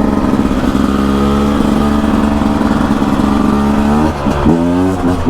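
Beta RR 300 single-cylinder two-stroke enduro engine pulling under way at a steady pitch. About four seconds in the pitch briefly drops and then climbs again.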